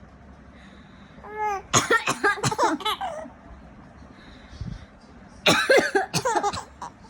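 An adult coughing in two loud spells a few seconds apart, and a baby laughing at the coughs.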